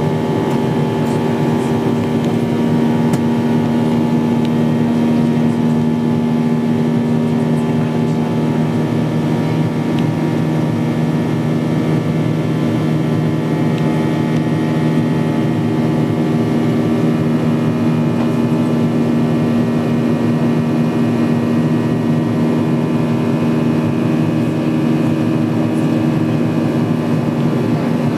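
Cabin noise of a Boeing 737-800 in flight: the steady drone of its CFM56 turbofan engines with several low hums and the rush of air along the fuselage, heard from a window seat.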